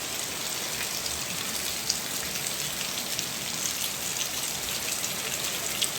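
Heavy rain falling steadily in a storm, a dense even hiss with a few sharper drop hits scattered through it.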